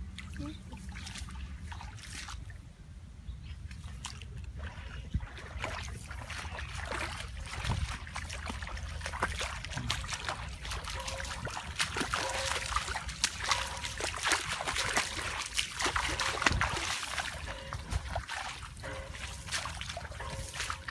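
Feet wading through shallow muddy floodwater and wet grass: repeated sloshing and splashing, busier and louder in the middle, over a steady low rumble.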